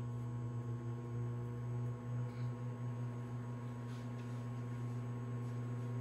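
Sharp Carousel SMC0710BW 700-watt countertop microwave oven running mid-cycle with a steady low hum.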